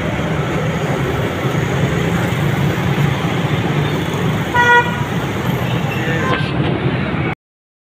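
Steady street traffic noise, with a vehicle horn giving one short toot about four and a half seconds in. The sound cuts off suddenly near the end.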